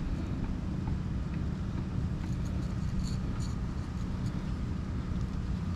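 Steady low background rumble with a constant low hum underneath. A few faint light ticks come near the middle, fitting hands working fishing pliers and line.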